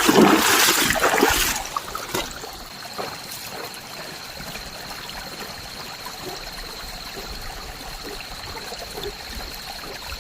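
Water splashing loudly for about a second and a half, then a steady trickle of running water, with a thin steady high tone joining in after about two seconds.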